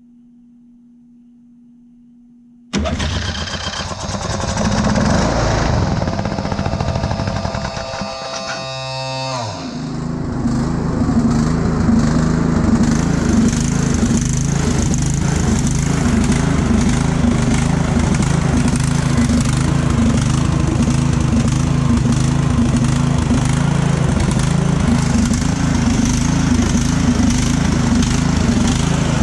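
Briggs & Stratton engine on a Saber lawn tractor starting on starter fluid with full choke: it comes in suddenly about three seconds in and runs unevenly at first. Its pitch sweeps down about nine seconds in, then it settles into steady running.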